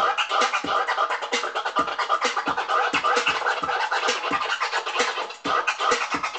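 DJ scratching a record on a turntable over loud electronic music with a thumping beat.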